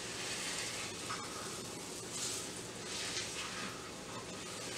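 Flour-coated rump roast searing in hot oil in a skillet: a steady sizzling hiss that swells and eases unevenly.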